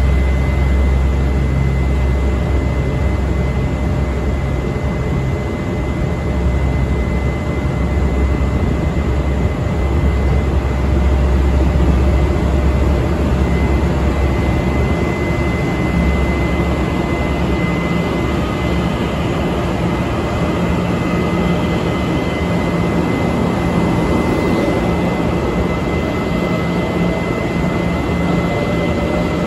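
TEMU2000 Puyuma Express tilting electric multiple unit pulling out of the station, its traction motors giving a rising whine in the second half as it gathers speed, over a heavy low rumble that eases about halfway through.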